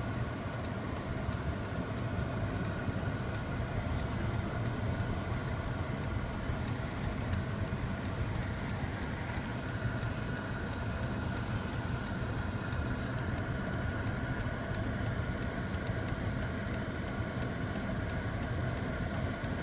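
Steady engine and road noise of a car moving slowly, heard from inside the cabin.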